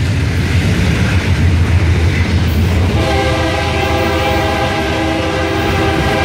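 Freight train of covered hopper cars rolling past close by: a loud, steady rumble of wheels on rail. The low rumble eases about halfway in, and a steady tone of several pitches joins it and holds.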